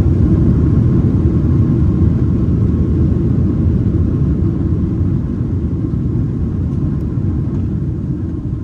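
Inside the cabin of a Boeing 767-300ER on its landing rollout: a loud low rumble of the wheels and engines that slowly dies away as the aircraft slows, with a faint steady whine above it.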